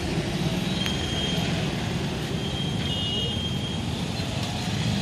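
Steady low background rumble, with a few faint, brief high-pitched chirps and a small click or two.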